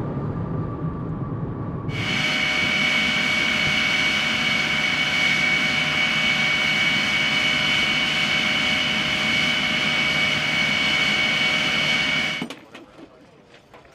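Low vehicle rumble, then about two seconds in a steady, high-pitched jet turbine whine starts abruptly, with two strong high tones over a hiss. It holds unchanged and cuts off suddenly near the end.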